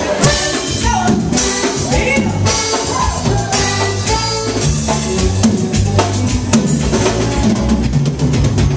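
Live band music: a drum kit keeping a steady beat under a strummed twelve-string acoustic guitar.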